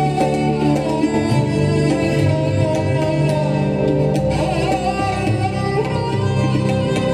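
Live Indian music ensemble playing: tabla strokes, sarangi, acoustic guitar and keyboard, with a woman singing.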